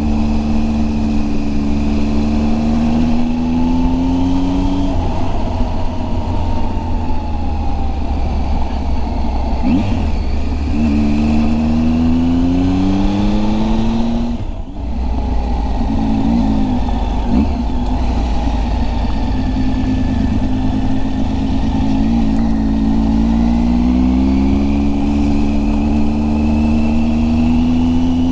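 Triumph Tiger 800XC's three-cylinder engine under way, its pitch rising repeatedly as the bike accelerates and dropping back between, with a brief lift off the throttle about halfway through. Steady low wind rumble runs underneath.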